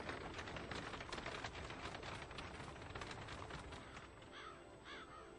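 Horse and buggy clattering past, a dense rattle of hooves and wheels that fades out about four seconds in. Then a crow caws a few times near the end.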